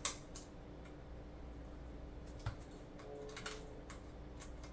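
Light, irregular clicks and taps of a small Allen wrench and screws against a metal radio cage as the screws are fitted. There is one duller knock about halfway through.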